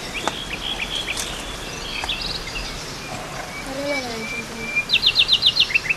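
Birds chirping: scattered short high calls, then a quick run of about eight sharp chirps near the end.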